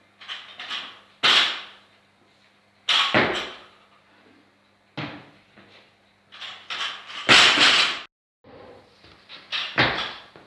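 Loaded barbell with bumper plates and the lifter's feet striking the wooden platform during repeated snatches: five loud thuds and clanks a second or two apart, with lighter clatter between them and a short echo after each.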